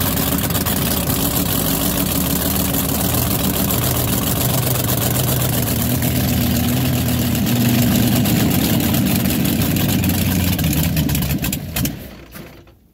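Supercharged 581-cubic-inch Dart big-block V8 in a three-point hydroplane, running loud and steady at idle, then shutting off and dying away near the end. The engine is running below operating temperature in the near-freezing river.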